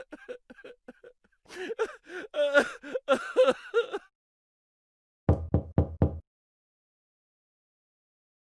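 A string of comic sound effects: a quick run of short pitched blips, a couple of seconds of voice-like babble, then four quick, heavy knocks about five seconds in.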